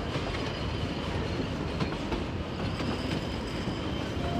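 Narrow-gauge passenger carriages rolling past close by at steady speed, their steel wheels rumbling and clicking over the rails.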